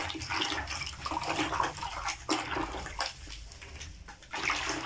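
Water sloshing and splashing in a plastic bucket as a hand stirs wallpaper paste powder into it.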